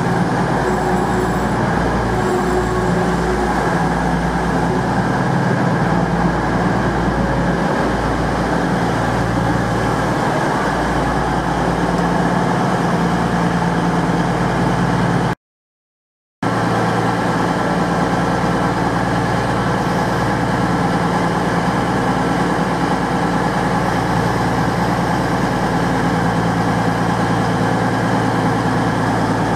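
Class 222 Meridian diesel-electric multiple unit's underfloor diesel engines running steadily at the platform, with a hum of held low tones. The sound cuts out for about a second midway, then resumes unchanged.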